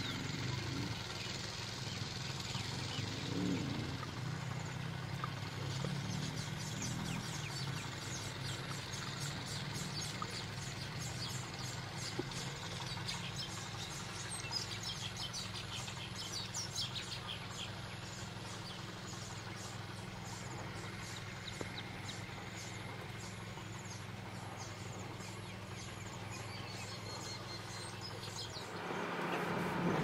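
Small birds chirping in quick series of short high notes, over a steady low background hum.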